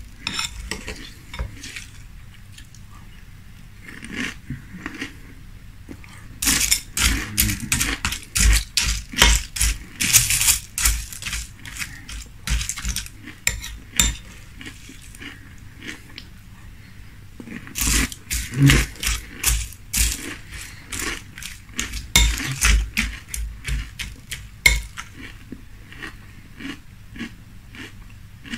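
Close-miked chewing of crunchy frosted corn flakes in milk, in two long stretches of rapid crunching, with a metal spoon clinking against a glass bowl.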